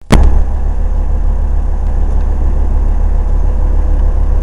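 A cruise boat's engine running with a steady low rumble, heard from inside the cabin, after a sharp click right at the start.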